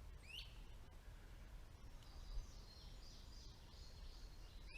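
Faint songbird chirps: a rising call near the start, a run of short high chirps in the middle, and another rising call at the end, over a low, steady outdoor rumble.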